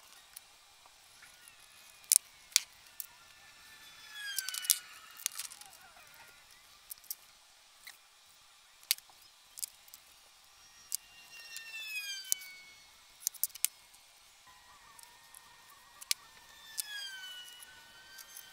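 Small metal tools clicking and tapping against a bare steel plate. Several short squeaks fall in pitch, each lasting about a second, as a scriber is dragged across the steel to scratch layout lines.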